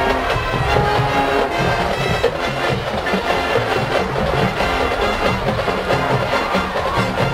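High school marching band playing: brass ensemble holding chords over a steady beat from the drum line.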